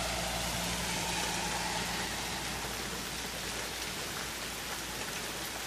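Steady rain falling, an even hiss of drops. A faint low hum fades out about two seconds in.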